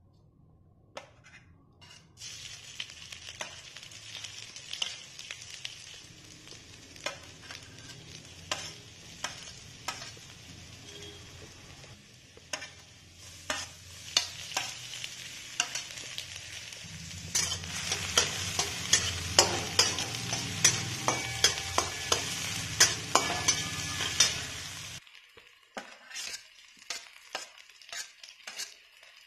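Chopped garlic, ginger and onion sizzling in hot oil in a kadhai while a metal utensil stirs and taps against the pan in frequent sharp clicks. The sizzle grows louder past the middle, then stops suddenly near the end, leaving only scattered taps.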